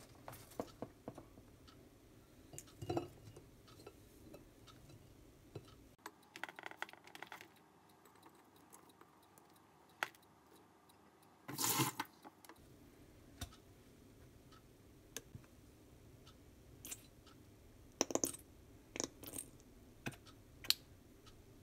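Scattered light clicks and taps of food and utensils being handled on a ceramic plate, with a brief louder rustle about twelve seconds in and a cluster of clicks near the end.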